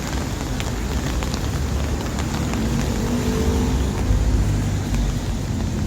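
City street traffic: motor vehicles passing with a steady low engine rumble, one vehicle's engine swelling louder about halfway through.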